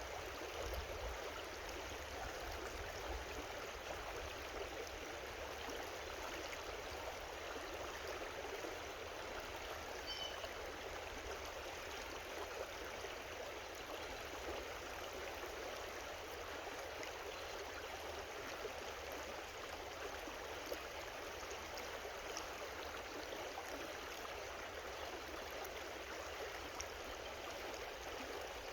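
A creek running steadily, an even rushing and trickling of water.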